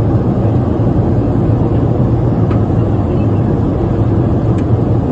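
Steady low rumble of a moving vehicle heard from inside, with a couple of faint clicks.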